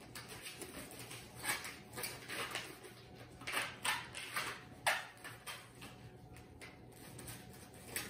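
Foam pool noodles rubbing and squeaking against each other and against a rubber band as it is stretched around them to bind them into a cross. Short, irregular scrapes, with one falling squeak about five seconds in.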